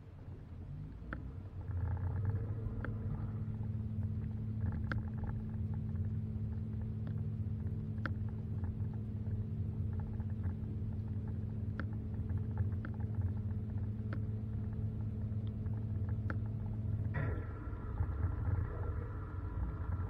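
Dishwasher motor running, heard from inside the tub: a steady low hum with a droning tone that builds up over the first couple of seconds, with scattered sharp ticks. About 17 seconds in the drone drops out and the sound shifts to a different pattern of higher tones.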